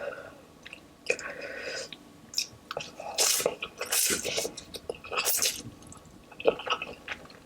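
A person slurping and chewing 2x spicy instant noodles, wet mouth sounds in irregular bursts, the loudest slurps about three, four and five seconds in.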